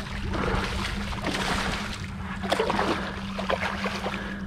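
Water splashing and sloshing, strongest in the middle, with a few sharp splashes: a hooked striped bass thrashing at the surface beside a kayak. A steady low hum runs underneath.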